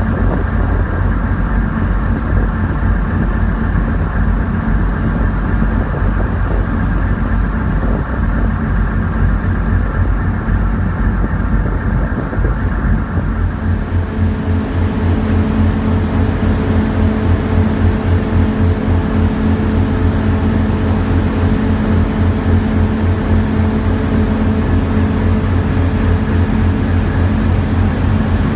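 Engines of a 4,200 hp tugboat running steadily while towing a ship, a low rumble with a fast throb. About halfway through the sound shifts to a steadier hum with more hiss of water and wind over it.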